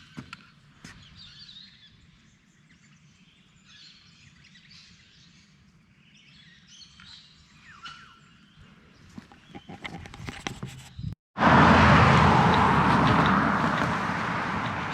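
Birds chirping here and there over quiet bushland ambience, with a few light crackles near the end of this quiet stretch. About eleven seconds in, a hard cut brings in a loud, steady rushing noise that stays to the end and is by far the loudest sound.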